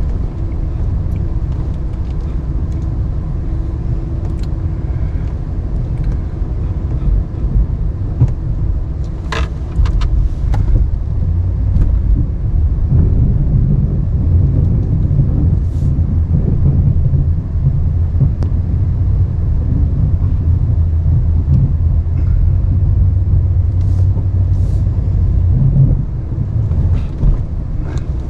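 Ram 1500 Classic pickup engine running steadily while pushing snow with a straight plow blade, heard from inside the cab, growing louder about halfway through as it works. A couple of sharp clicks about a third of the way in.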